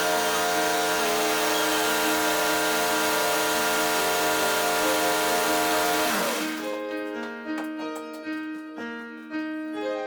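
Background piano music over a loud, steady whirring noise like a power tool. The whir cuts off about two-thirds of the way through, leaving the piano alone.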